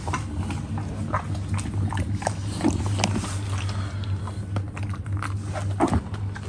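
English bulldog crunching and chewing pieces of apple, with irregular crunches and smacks over a steady low hum.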